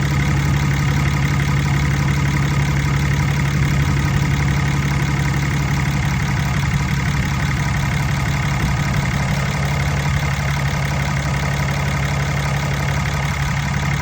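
Diesel engine of a Ram 3500 pickup idling steadily, with a strong even low hum, as heard under the open hood.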